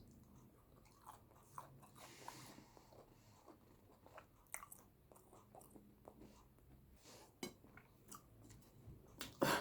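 Close-up chewing and wet mouth sounds of someone eating boiled yam with eggplant sauce: soft, irregular clicks and smacks, with a louder knock near the end.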